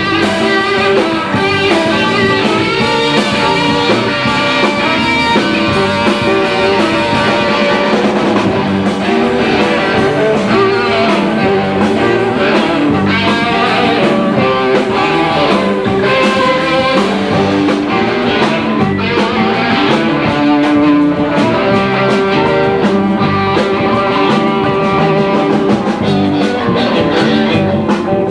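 Blues-rock band playing live, with guitar to the fore over a steady beat.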